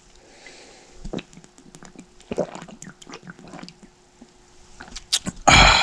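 Scattered light clicks and knocks from handling parts, then a loud, short rushing burst near the end.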